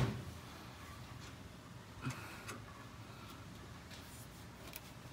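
Quiet, with a few faint metallic ticks from a combination wrench being set on the nut of a truck's rear shock lower mounting bolt, about two seconds in and again near the end.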